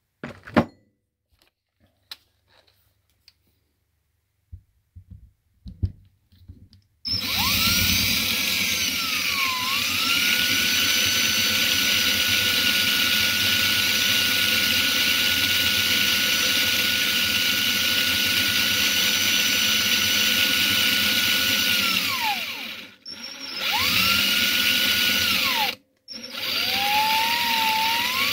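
Power drill boring a 3/8-inch hole into a bass guitar's body with a Forstner bit. A few knocks and clicks come first; then the drill spins up and runs steadily with a high motor whine for about fifteen seconds, winds down, and runs again in two shorter bursts near the end.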